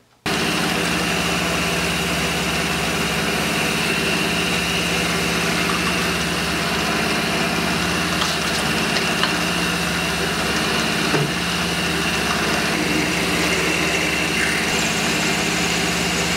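Clausing vertical milling machine running steadily, its spindle turning a 9/32 drill bit into an aluminum ring: a steady motor hum with a high whine and a few faint ticks.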